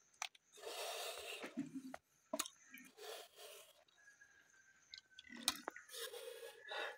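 A person sucking snails out of their shells and chewing them, with long hissing slurps (one about half a second in, another near the end) and a few sharp clicks of shell in between.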